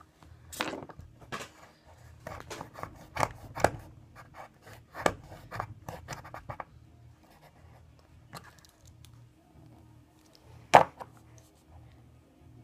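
Cutting and scraping at a plastic lighter: a run of short, sharp snips and scratches, then a quieter stretch and one loud click near the end.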